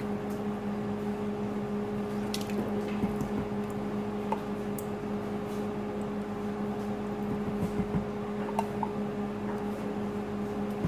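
Thick coconut cream being scraped from a can with a silicone spatula and dropped into the liquid curry: soft squishy scrapes and a few light taps over a steady low hum.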